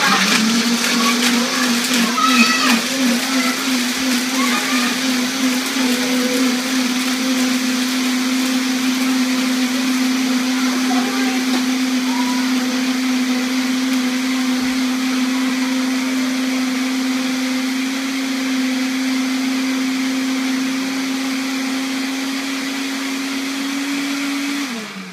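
Countertop blender running on its automatic program, puréeing tomatoes, dried tomatoes and garlic into a thick ketchup. A steady motor hum that wavers at first as the mixture churns, slowly rises in pitch, then cuts off shortly before the end.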